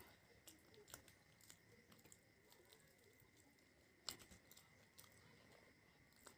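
Faint chewing of food close to the microphone: soft wet mouth sounds and scattered clicks. The sharpest click comes about four seconds in.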